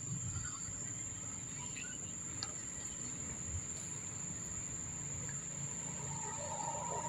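Insects droning with a steady high-pitched whine, with a few faint brief chirps over it. Near the end a louder, noisier sound swells in.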